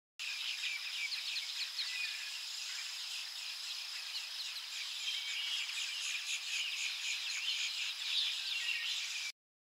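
Forest ambience of many small birds chirping over a steady high insect hum. It cuts in abruptly just after the start and cuts off abruptly near the end.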